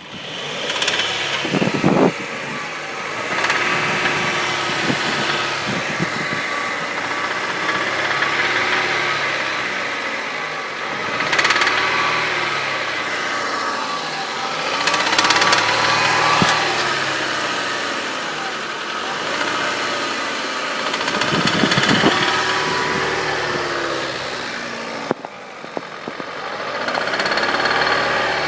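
Hyundai 2.0 L 16-valve four-cylinder engine with 136,000 km running, recorded to show an engine noise; its level swells and eases several times.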